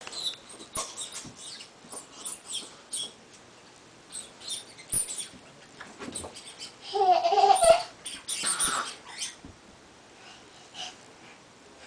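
Scattered soft thumps and light taps of a small ball being played with on the floor, with a toddler's brief, wavering high-pitched squeal about seven seconds in.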